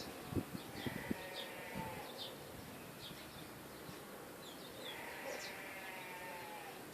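Several birds giving short high chirps, with a rapid buzzing trill heard twice. A few low thumps come in the first second.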